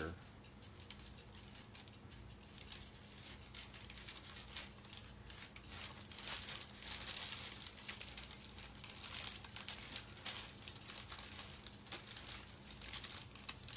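Clear plastic parts bags crinkling and rustling as they are handled and worked open, in a continuous run of irregular crackles.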